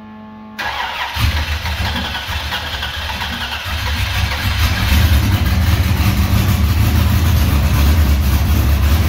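A car engine starts about half a second in, then runs with a deep, steady rumble that grows louder over the next few seconds and settles into an even idle.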